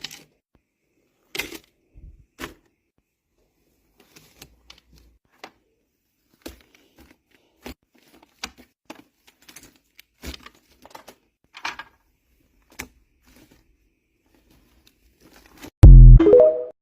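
Scattered light clicks and rustles, like cardboard jigsaw puzzle pieces and packaging being handled. Near the end comes a very loud, distorted burst with a rising tone that cuts off sharply.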